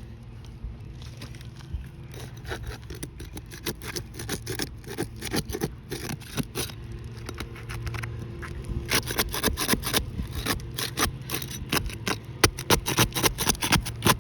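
Rapid scraping and clicking of a tool working under asphalt roof shingles, busier and louder in the second half.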